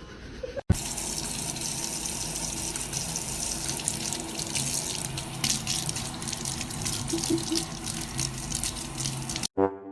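Water running steadily with splashing, starting abruptly under a second in and cutting off just before the end.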